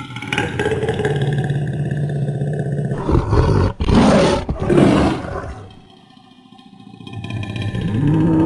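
Monster roar sound effect for a giant piranha. A low growl gives way about three seconds in to two loud, rasping roars, then dies down. A new call with an arching pitch starts near the end.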